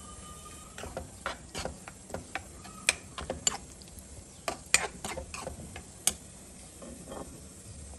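Steel spoon stirring thick makhana and cashew curry in a kadai, in a string of sharp knocks and scrapes against the pan that stop near the end.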